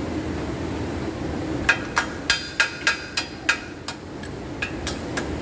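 Sharp metal-on-metal taps ringing out as a wheel bearing's retaining snap ring is worked into its groove in the steering knuckle. There are about eight quick taps, roughly three a second, a short pause, then three more near the end.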